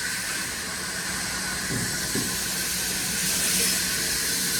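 Steady hissing noise with a low hum underneath, like machinery running.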